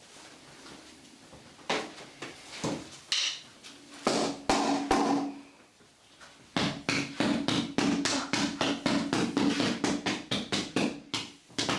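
Hands striking a patient's body in percussive massage, with slaps or chops landing on the body. A few separate strikes come first, then from about the middle a fast, even run of about four strikes a second.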